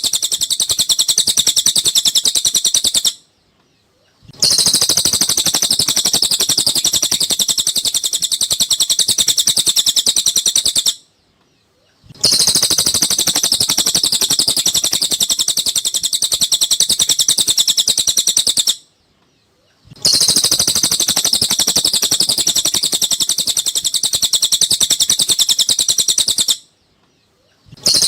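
Cililin bird song from a looped masteran recording: long runs of rapid, high chirping, each lasting about seven to eight seconds, broken by short silences of about a second, four times in all.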